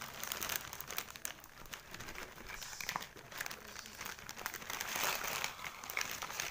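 Clear plastic bag of kerupuk crackers crinkling and rustling as it is handled, a dense, irregular run of crackles.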